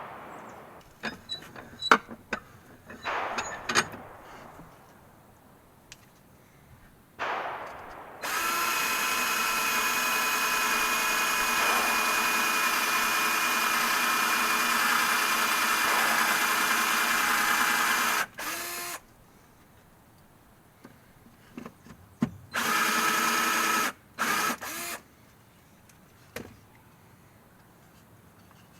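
Electric power drill running in bursts: one steady run of about ten seconds, then several short runs. It is preceded by scattered clicks and knocks of handling.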